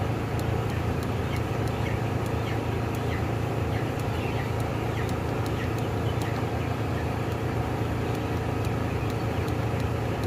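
Steady drone and low hum of the exhaust fans ventilating a tunnel broiler house, with faint short chirps from the broiler chickens scattered through it and faint regular clicks.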